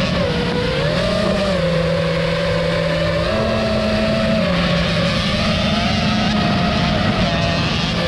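Engine and motor noise from a dirt bike being ridden with a camera drone flying close behind it. The pitch steps and glides up and down as the throttle changes.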